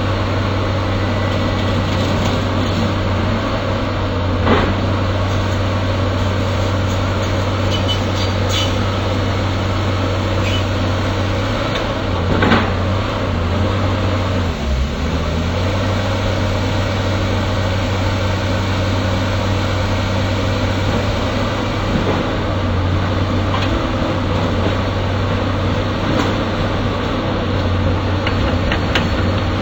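Excavator's diesel engine running steadily, with a sharp knock about four seconds in and another about twelve seconds in; its pitch dips briefly about halfway through.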